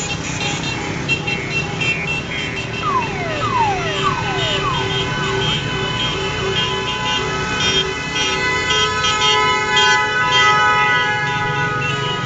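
Many car horns honking at once in overlapping bursts over the noise of slow traffic. A few falling, whistle-like tones sound about three to five seconds in.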